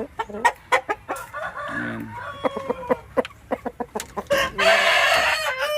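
Gamefowl rooster crowing: one long, loud crow in the second half, with a fainter call earlier and scattered short sharp clicks.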